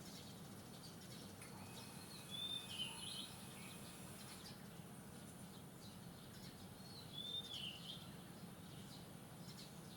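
Wild bird song: a short whistled phrase, twice, about five seconds apart, over a faint steady outdoor background hiss.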